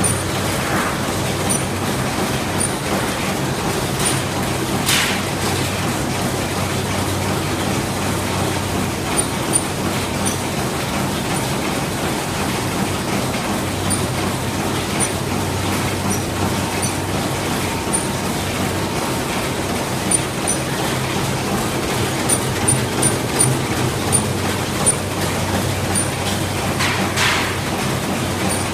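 Ham sausage cutting machine running steadily, a constant mechanical hum with faint irregular clicks. There is a brief rushing noise about five seconds in and another near the end.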